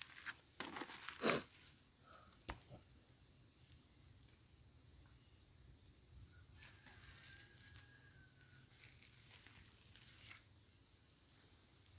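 Faint handling noise: rustling and a few sharp clicks in the first couple of seconds, then a quiet background with a faint thin whistle in the middle.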